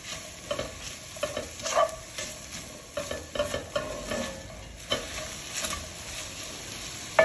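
Sliced red and yellow onions sizzling in butter and oil in an enameled cast-iron braiser, stirred with a slotted spatula that scrapes and taps against the pan at irregular moments.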